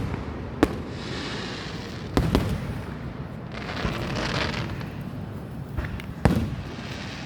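Aerial fireworks bursting: several sharp bangs a second or two apart, with a hiss between them, the loudest bang coming about six seconds in.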